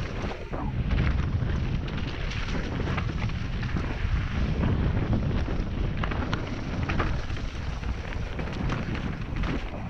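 Wind rumbling on a helmet camera's microphone during a fast mountain-bike descent on a dirt trail, with frequent clicks and rattles from the bike and tyres running over roots and stones.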